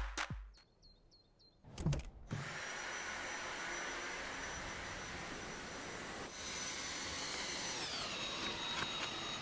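Cordless stick vacuum cleaner's motor running: a steady rushing whir with a high whine, starting just after a short thump about two seconds in. It grows louder about six seconds in, and the whine falls in pitch near the end.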